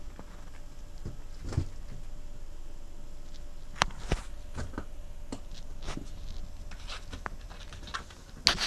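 Scattered light taps and clicks over a faint steady hiss, from a Pembroke Welsh corgi moving about on a wooden floor and bumping rubber balloons with its nose, with a cluster of taps near the end.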